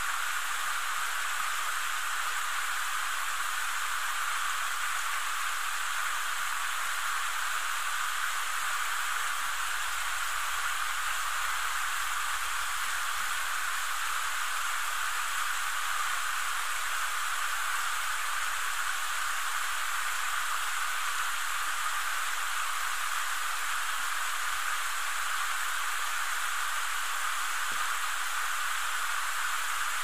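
Small waterfall and stream cascading over rock ledges: a steady rush of water.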